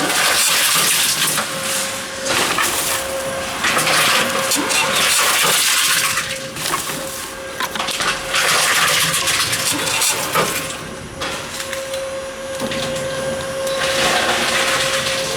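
Tomra T-53 reverse vending machines running: a loud rushing, whirring machine noise that swells and drops in several surges, over a thin steady hum.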